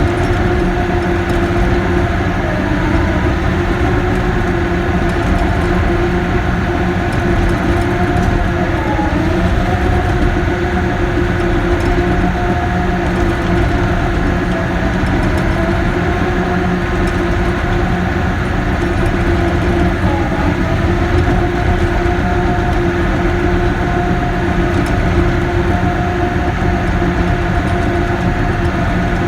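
Cat D6K bulldozer's diesel engine running steadily under load, its pitch dipping and rising a little now and then, with a heavy mechanical rumble underneath.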